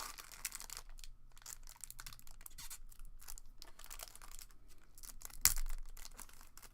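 Trading card box packaging being torn open and crinkled by hand, in quick irregular crackles with a louder rip about five seconds in.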